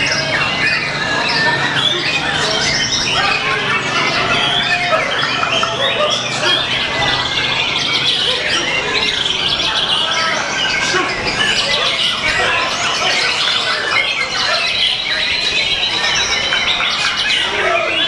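White-rumped shama (murai batu) singing a continuous, varied song of quick whistles, trills and chattering notes.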